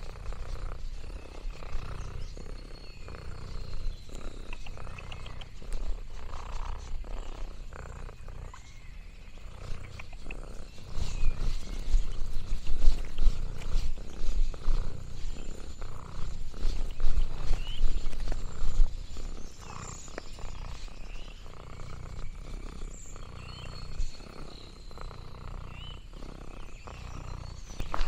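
Domestic cat purring close to the microphone: a steady, pulsing low rumble that grows louder through the middle stretch.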